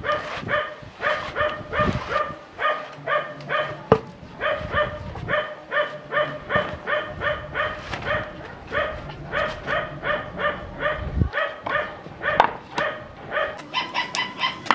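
A small dog barking without a break, short sharp yaps about three to four a second, going higher in pitch near the end. A few knocks of wood being set down sound among the barks.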